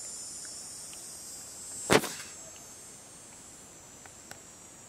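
Insects singing in a steady high-pitched drone. A single sharp knock about two seconds in, then two faint ticks a little after four seconds.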